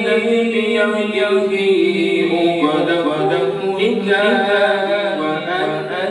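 A man reciting the Qur'an aloud in Arabic, chanting melodically with long held, slowly shifting notes.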